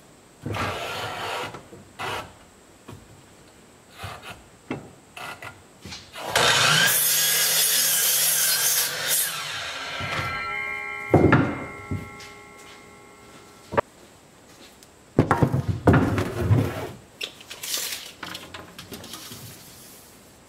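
DeWalt miter saw making a cut through a board: about six seconds in, a loud burst of motor and blade noise for some three seconds, then the blade whining as it spins down. Before and after, wooden boards are knocked and slid about on the saw bench.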